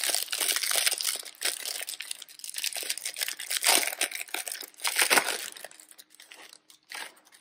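Clear plastic wrapper on a pack of Panini Playbook football cards crinkling as it is torn open and peeled off the card stack, with irregular crackles that thin out and grow quieter after about five seconds.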